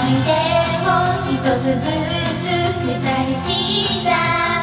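Japanese idol pop song: female voices singing a melody over an upbeat pop band backing track.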